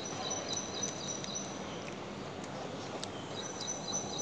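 Outdoor ambience: a steady background hiss with a high, thin, continuous tone that drops out for about a second and a half in the middle, then returns.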